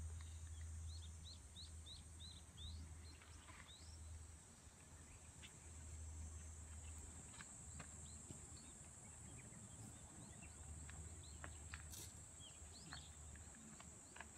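Faint outdoor ambience: a bird giving runs of quick, short rising chirps near the start and again near the end, over a steady high insect drone and a low rumble.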